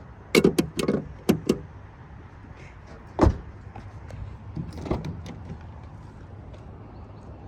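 A quick run of sharp clicks and clunks, then one heavy thump a little over three seconds in and a lighter knock near five seconds, over a steady low rumble.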